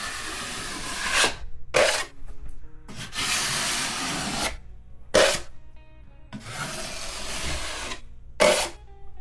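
Drywall knife scraping joint compound across a wall patch in three long strokes, each followed by a short, sharper scrape.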